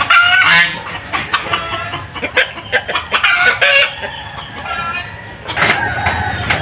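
Domestic chickens clucking and calling, with loud calls at the start and again about three seconds in.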